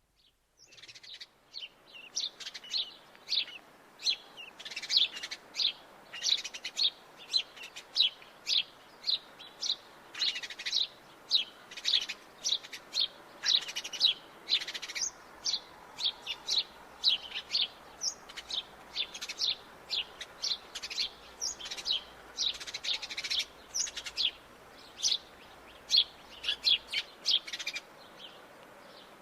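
Sparrows chirping: a steady run of short, sharp chirps, about two a second, starting about a second in.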